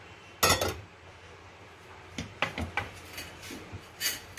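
A non-stick pan set down on a gas stove's metal pan support with a loud clank about half a second in, followed by a few lighter knocks and clinks as it is settled.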